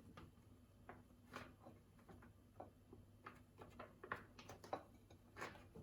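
Faint, irregular light taps and clicks of kitchen utensils and dishes being handled.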